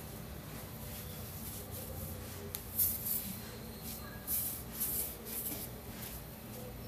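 Corn tortillas cooking on a hot comal over a gas burner: a steady low hum, with several short, soft hisses in the middle stretch.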